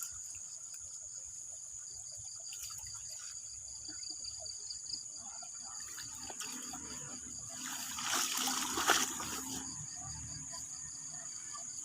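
Water trickling and dribbling, with a louder burst of splashing about eight to nine seconds in. Insects keep up a steady high chirring throughout.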